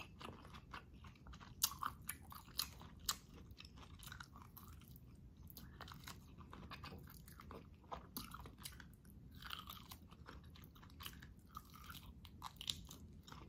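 Close-miked chewing and biting of boiled beef meat off the bone from sinigang, a stream of irregular wet mouth clicks and smacks, a few sharper ones in the first few seconds.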